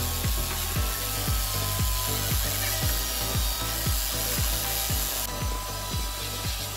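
Background music with a steady low beat, about three beats a second.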